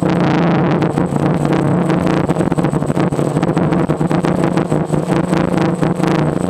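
Steady whine of a DJI Phantom quadcopter's motors and propellers in flight, with a rapid flickering rush of wind noise over it.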